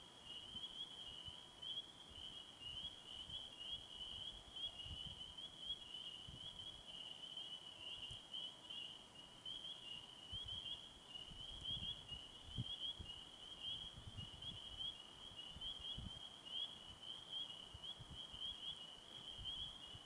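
A continuous high-pitched insect trill, steady and finely pulsing, with soft scattered low rumbles underneath.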